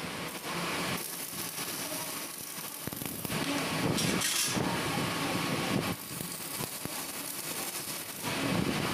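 Electric arc welding on steel fence bars: the arc crackles and hisses for about three seconds starting a few seconds in, then starts again near the end.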